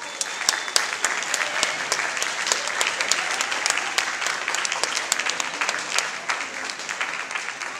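Audience applauding: a dense patter of many hands clapping, easing slightly toward the end.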